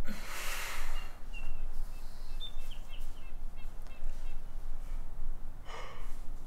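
A woman's sharp, breathy gasp right at the start and a second one near the end, in distress. Between them come a few faint, short, high chirps.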